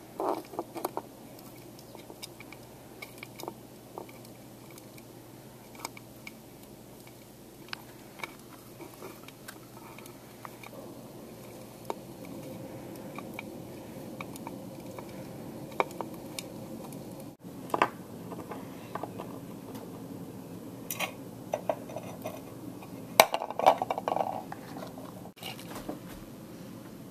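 Hermit crabs moving about inside a hard plastic mirror bowl: scattered light clicks and taps of shell and legs on the plastic, with a low rustle from about halfway and a cluster of louder knocks near the end.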